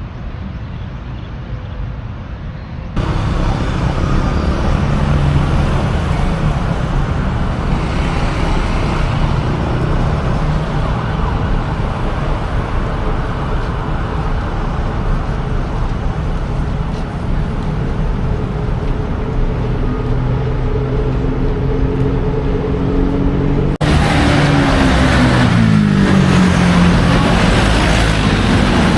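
Road traffic: motor vehicle engines running over steady street noise. The sound changes abruptly about three seconds in and again near the end, and in the last part an engine's pitch falls steadily.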